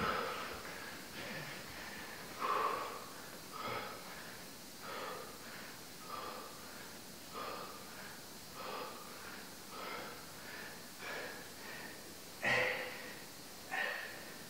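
A man breathing hard through a set of sit-ups, a short forceful exhale with each repetition, about one every second and a quarter.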